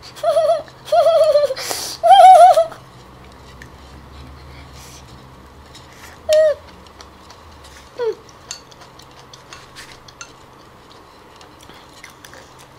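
A woman's high-pitched whimpering squeals of disgust, three wavering cries in the first three seconds, as she bites into a live coconut palm weevil grub. Then quiet chewing clicks, broken by two short falling whimpers about six and eight seconds in.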